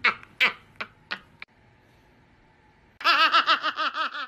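Laughter: short, falling laughs about three a second for the first second and a half, then after a pause a boy's fast, high-pitched run of laughter near the end.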